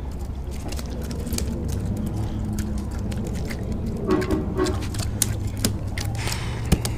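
Small gafftopsail catfish flopping on the wooden pier deck: scattered wet slaps and taps on the boards, more frequent in the second half, with one sharp knock near the end, over a steady low rumble.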